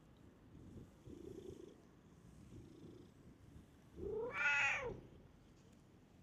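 Stray cat purring on a lap, then giving one drawn-out meow about four seconds in that rises and then falls in pitch.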